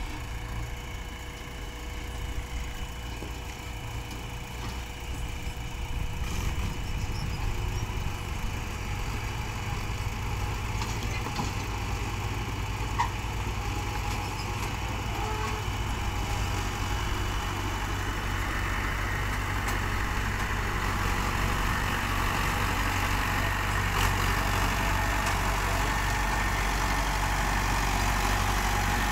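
Diesel engines of farm tractors and a JCB 3DX backhoe loader running steadily, growing louder from about six seconds in as a Mahindra Arjun 555 tractor draws up close.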